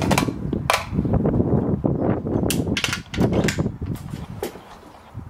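Gunfire at an outdoor shooting range: a series of sharp cracks, several bunched together around the middle, over a low wind rumble on the microphone.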